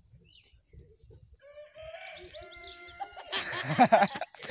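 A rooster crows in one held call from just under two seconds in to about three seconds. Right after it a man laughs loudly, the loudest sound here, ending near the close.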